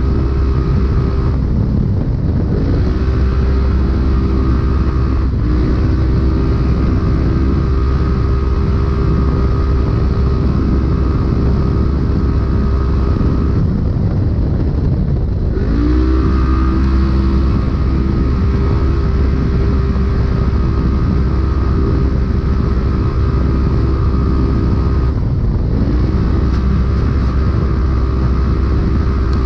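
Polaris RZR UTV engine running hard at steady high revs. Three times, about two seconds in, about fourteen seconds in and near the end, the engine note drops briefly and then climbs back up.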